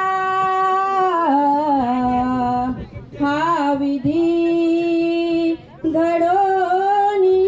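A single voice singing slow, long-held notes that step down in pitch and rise again, with two short breaks for breath.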